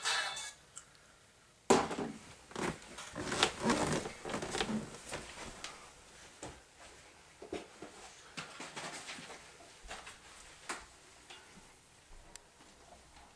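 Irregular knocks, clicks and rustling of someone moving about and handling things in a small room. It starts with a sharp knock about two seconds in, and the sounds thin out near the end.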